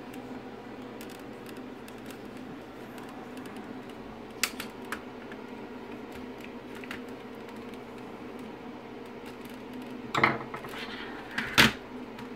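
Small screwdriver prying back the plastic lugs on a speedometer pointer motor's casing: a few sharp plastic clicks and taps, two about four to five seconds in and a louder cluster near the end, over a steady background hum.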